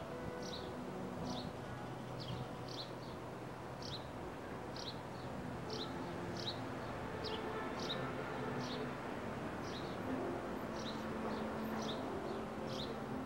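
A small bird chirping again and again: short, high, falling chirps, about one every two-thirds of a second, often with a fainter second note straight after. A steady low hum of background noise runs underneath.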